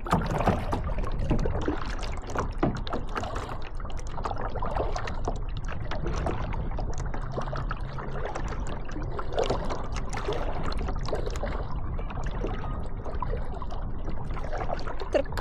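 Kayak paddles dipping into the water in irregular small splashes, over a steady low rumble.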